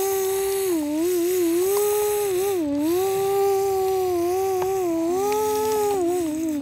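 A steady vocal engine drone, hummed to play the digger working, its pitch dipping and rising now and then. A second, lower hum joins about five seconds in.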